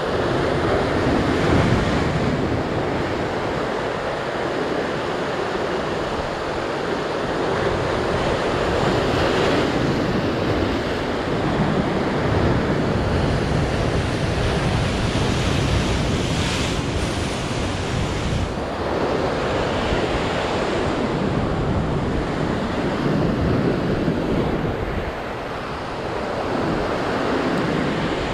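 Ocean surf breaking against a rocky shore: a continuous wash of waves that swells and eases as each one comes in, with wind buffeting the microphone.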